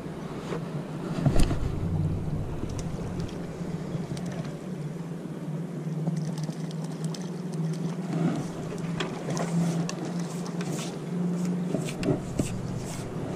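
Harbour water lapping against breakwater rocks under a steady low engine drone from a boat on the water, with scattered small splashes and clicks, more of them in the second half.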